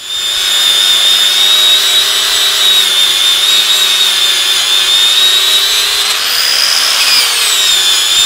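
Angle grinder with a wire wheel running at speed, wire-brushing glue residue off a steel file-guide piece. It is a loud, steady, high whine that starts abruptly, and its pitch dips near the end.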